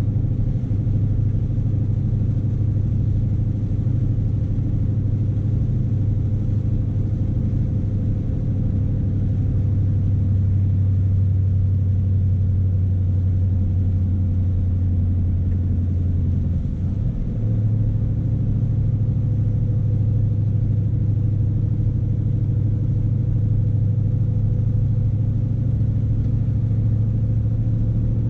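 Scania S520's V8 diesel engine droning steadily, heard inside the truck's cab, pulling a 48-tonne load. A little past halfway the drone dips briefly and then carries on at a slightly higher pitch.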